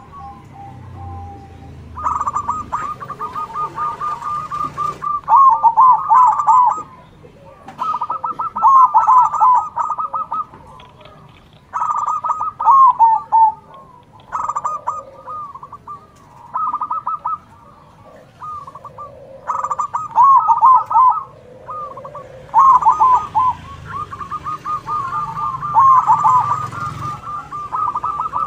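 Zebra doves (perkutut) cooing in turn, each phrase a quick rolling run of notes, one phrase after another every two to three seconds with short pauses between.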